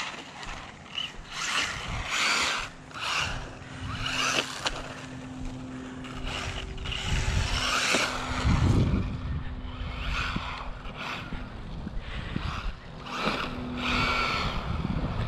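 Small electric RC drift truck being driven in repeated short bursts of throttle: each burst brings a rush of motor and tire noise, over a steady low hum.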